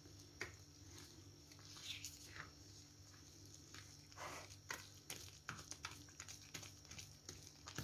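Faint sound of a spoon stirring thick carrot cake batter, flour being worked into the liquid mix: soft wet scrapes and small clicks at irregular moments.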